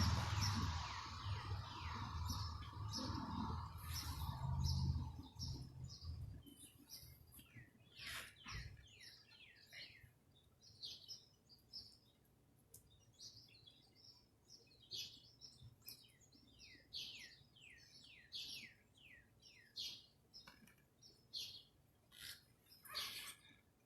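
Songbirds chirping: runs of short, quick, falling chirps that repeat through the stretch. A low rumble fades out over the first six seconds or so.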